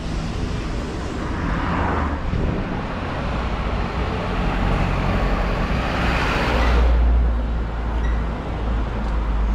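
Street traffic with a Mercedes-Benz refrigerated box truck driving past close by, its engine rumble and tyre noise swelling to loudest about seven seconds in; another vehicle passes briefly near two seconds in.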